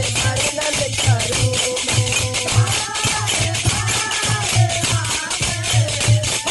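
Women singing a Hindi devotional bhajan to Khatu Shyam, with a fast, even jingling of hand percussion and a low pulsing beat under the voices.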